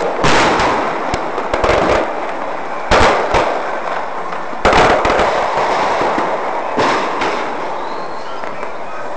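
Fireworks going off: a string of loud bangs a second or two apart, each trailing off, over a steady din of more bursts. The bangs thin out in the last couple of seconds.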